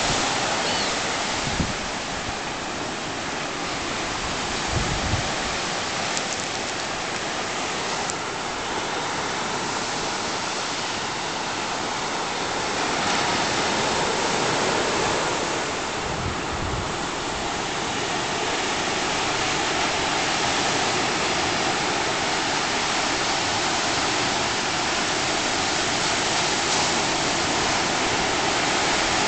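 Ocean surf breaking and washing up a sandy beach: a steady rush of whitewater that swells and eases slowly, with a few brief low thumps on the microphone.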